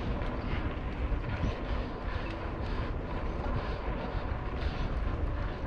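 Mountain bike riding over a hard-packed sand trail: a steady rumble of wind on the microphone and tyre noise, with faint scattered ticks and rattles.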